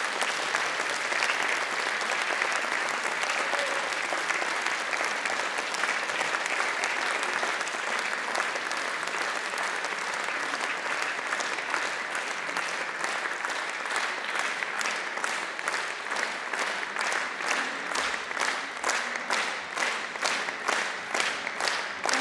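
Audience applause that about halfway through falls into rhythmic clapping in unison on a steady beat.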